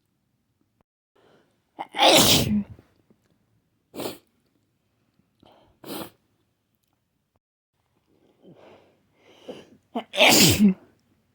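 A run of snotty sneezes. A big sneeze comes about two seconds in, then two short, sharp sneezes about two seconds apart. Quick breathy build-up follows, then a second big sneeze near the end.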